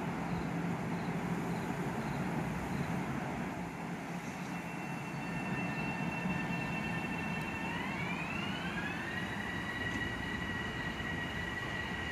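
Metro-North electric multiple-unit train running with a steady rumble and hiss. About four seconds in, a high whine from its propulsion sets in, glides up in pitch a few seconds later, and then holds.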